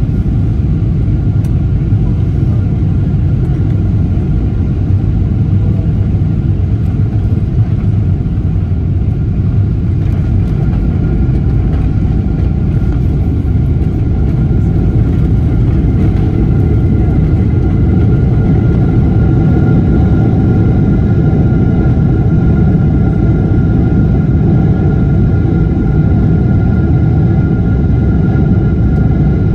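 Steady low rumble of a Boeing 777-300ER airliner with its GE90 engines running, with a faint steady whine that grows stronger about halfway through.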